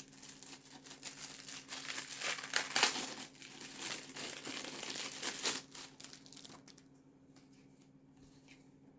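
Crinkling and rustling of packaging handled and torn open by hand, for about six and a half seconds, then stopping with only a few faint clicks.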